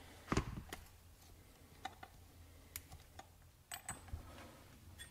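Scattered light clicks and taps of tools and small parts being handled, with one louder knock about a third of a second in.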